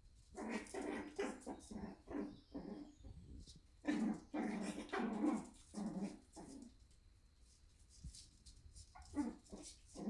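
Shiba Inu puppies play-fighting, giving short yaps and growls in three quick bouts: starting about half a second in, again around four seconds, and once more near the end.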